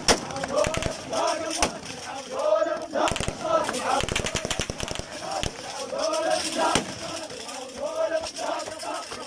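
A group of men chanting a hosa refrain in rhythmic unison, with repeated bursts of rapid gunfire, thickest about three to five seconds in.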